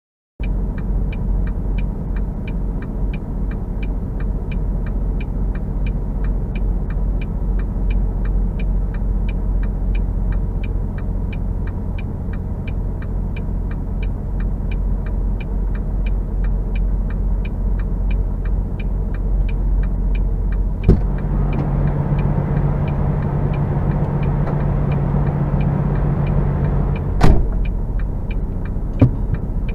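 Semi truck diesel engine idling steadily with a low rumble and a fast, regular ticking. About two-thirds of the way through, a second truck's engine hum joins as another tractor-trailer pulls through close by, with a few sharp knocks.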